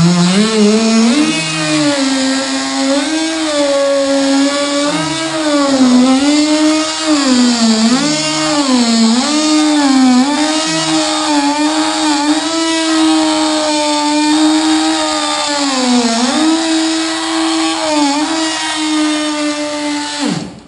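Electric power cutting tool used to cut out a back window, its motor spinning up and then running steadily, dipping in pitch again and again as the blade works through the glass adhesive. Near the end it drops in pitch and stops suddenly.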